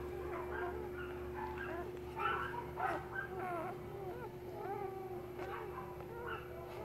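Newborn Great Pyrenees puppies squeaking and whimpering: many short, high squeaks that slide up and down, loudest about two to three seconds in, over a steady low hum.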